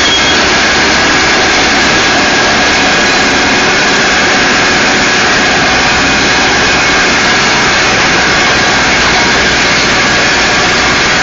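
Caterpillar 416C backhoe's Perkins turbo-diesel engine running steadily and loud, with a faint high whine held over it.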